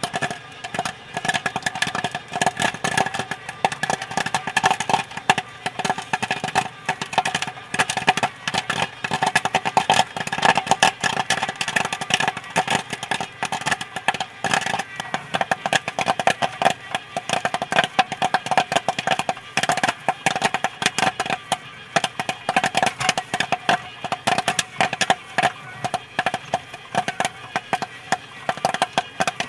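Popcorn kernels popping fast and continuously, a dense, irregular stream of sharp pops over a steady hum.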